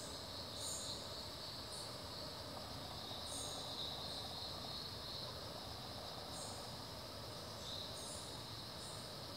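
Tropical forest insect chorus: a steady high drone, with short, higher chirps now and then.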